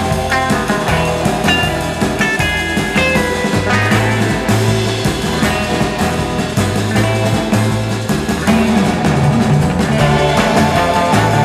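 Rock background music with electric guitar, a pulsing bass line and drums.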